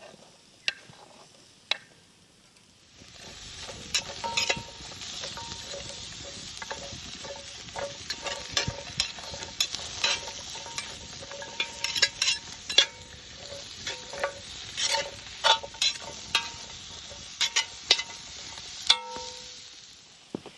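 Food frying and sizzling in a pan while a utensil stirs it, scraping and clicking against the pan many times. The sizzle starts suddenly about three seconds in and cuts off near the end.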